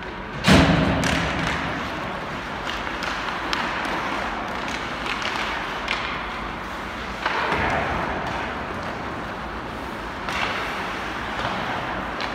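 Ice hockey play in an arena: a loud slam against the boards about half a second in, then scattered sharp clacks of sticks and puck, with a swell of noise around the middle over the rink's steady background.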